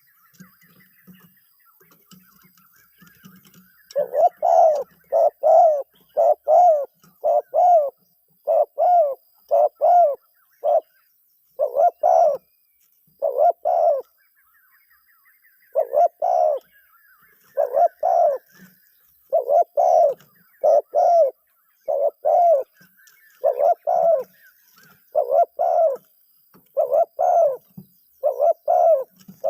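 Zebra dove cooing: a decoy bird calling to wild doves. About four seconds in it starts a long run of short, quick coos in twos and threes, with a brief pause midway. Faint high chirping comes before the coos begin.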